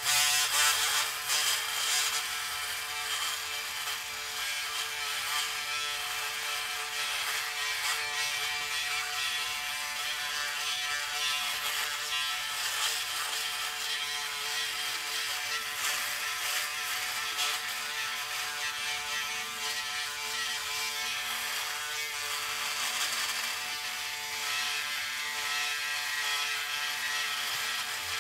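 Braun Series 6 electric foil shaver running with a steady motor buzz while it is worked over thick stubble, with an uneven crackle of cut whiskers on top.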